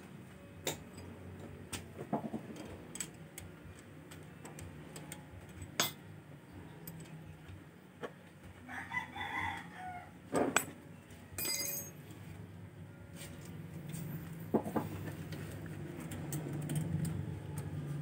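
Scattered light metallic clicks and taps of hand tools on the valve adjusters and rocker arms of a Honda Click 125 engine during a valve clearance adjustment. A rooster crows once in the background about nine seconds in.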